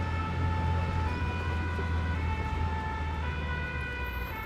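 Two-tone siren of a Paris fire brigade vehicle, alternating between two notes about once a second, heard from inside the cab over the low drone of the engine.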